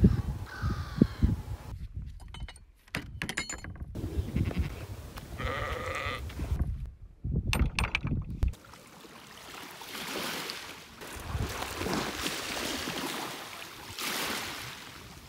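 A sheep bleats once, a wavering call about five seconds in, with low wind rumble and scattered clicks around it. From about halfway on, a steady rushing of wind takes over.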